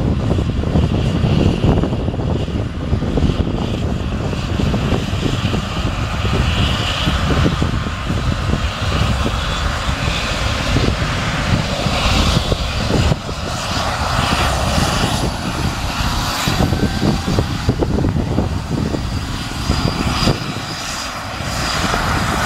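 Eurocopter EC 135 P2 rescue helicopter running on the ground with its main rotor turning: a steady, loud rumble of rotor noise under the whine of its twin turboshaft engines, with a faint high whine that climbs slowly in pitch through the middle.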